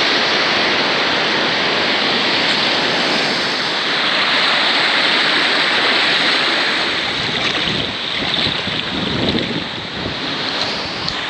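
Rushing river water, a steady loud hiss with no break, easing slightly near the end.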